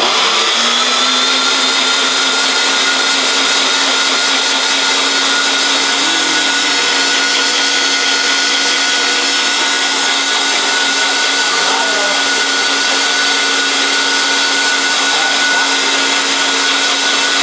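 Ninja countertop blender running on high, blending cut strawberries with almond milk: a loud, steady motor whine that starts abruptly and holds an even pitch.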